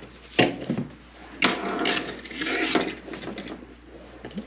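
Plastic buckles on a binocular chest harness clicking as a strap is fitted, with nylon webbing rustling. There are two sharp clicks, about half a second and a second and a half in, then a second or so of rustling.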